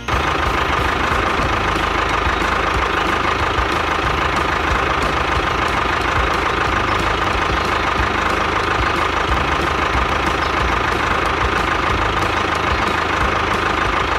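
Diesel tractor engine sound running steadily with a fast, even knock, cutting in suddenly and held without change. It is laid over the miniature toy tractor's driving as a sound effect.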